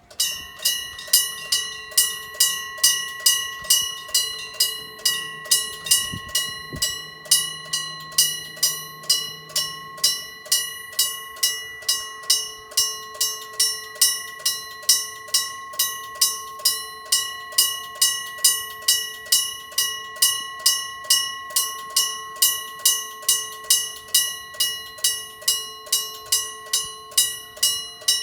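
Railroad level-crossing warning bell starts ringing suddenly and keeps up a steady clang, about two strikes a second: the signal that a train is approaching.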